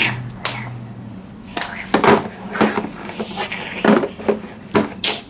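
Hard plastic toy animal figurines knocking and clacking against a tabletop as they are picked up and set down, a series of irregular short taps.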